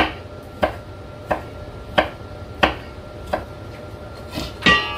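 Chef's knife chopping red onion on a wooden cutting board: sharp, evenly paced knocks about one every two-thirds of a second, then a quicker, louder clatter near the end.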